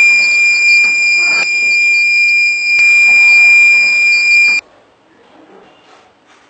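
Electronic alarm buzzer of a homemade water-tank level indicator sounding one loud, steady high-pitched tone, then cutting off suddenly a little over four and a half seconds in. Two faint clicks come during the tone.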